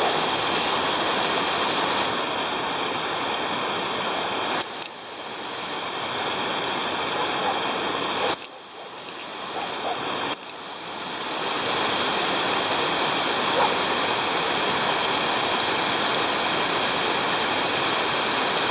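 Waterfall, a steady rush of falling water. It drops away sharply twice, about five and eight seconds in, and builds back up over a second or two each time.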